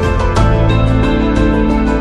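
Background music: a soft, steady instrumental with a regular beat and sustained chords, changing chord about half a second in.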